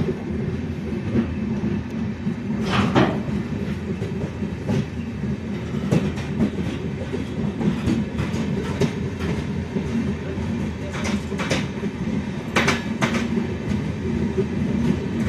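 Passenger train running, heard from on board: a steady low rumble of the coach, with the wheels clacking on the track at uneven intervals.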